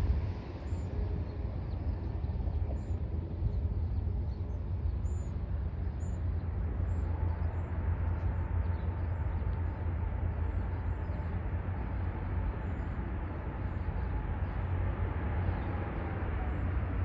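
Steady low rumble of distant jet airliners on the airport runways, with a faint engine whine rising out of it about halfway through. Short high bird chirps come every second or so.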